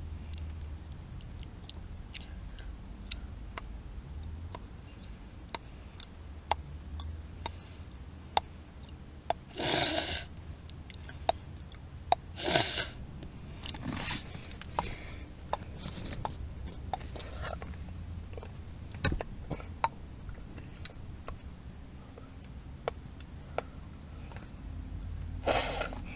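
Handling noise from a hand-held camera inside a parked car: scattered sharp clicks and a few short rustling bursts over a steady low rumble.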